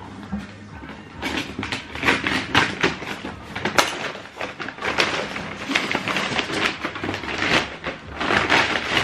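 Cardboard packaging being handled: a busy run of rustling, scraping and crinkling with irregular knocks, starting about a second in, as a shoebox is pulled out of a cardboard carton.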